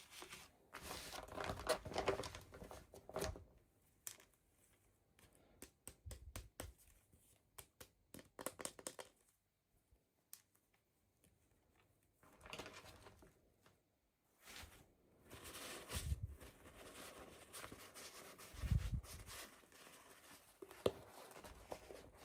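Toy packaging being handled and opened: plastic and paper crinkling and tearing, with small clicks and taps, in irregular spells with a brief pause midway.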